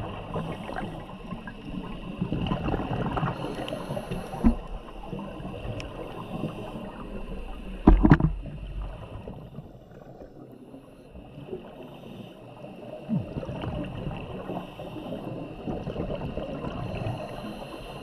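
Underwater sound of a scuba diver's exhaled bubbles gurgling, rising and fading every few seconds, with one loud bubble burst about eight seconds in and faint scattered clicks in the water.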